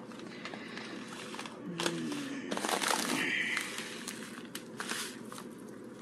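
Crinkling and rustling of a foil tea packet being handled and tipped over a saucepan, as loose tea leaves go into the milk. There is a steady hiss underneath and a brief voice sound about two seconds in.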